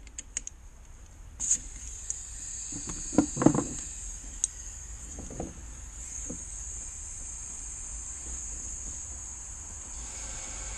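Compressed air hissing steadily into a cylinder of a Chrysler 2.8 CRD diesel during a leak test, starting with a sharp click about a second and a half in. The escaping air fills a plastic bag over the engine, showing air getting past a valve. A few knocks of handling come a few seconds in.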